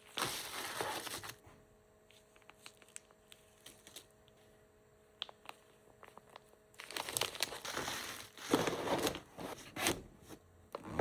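Packaging being handled while packing orders, crinkling and rustling: a short burst at the start, a few seconds of only faint clicks, then a longer stretch of crinkling from about seven seconds in.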